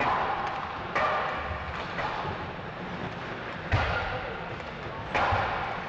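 Ice hockey pucks and sticks knocking against the boards and ice during warm-up, four sharp hits that echo through the arena over a steady background din.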